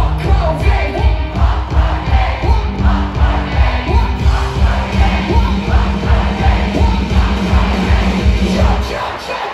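Live rock band playing loud through a concert PA, with a steady heavy kick-drum beat under a sung vocal line, and the crowd yelling along. The bass and drums drop out just before the end.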